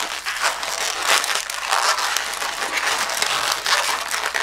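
Inflated latex twisting balloon squeaking and rubbing under the fingers as its bubbles are twisted and pinched, in an irregular scratchy stream.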